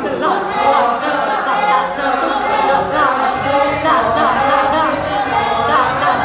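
A group of students singing a cappella, many voices overlapping at once.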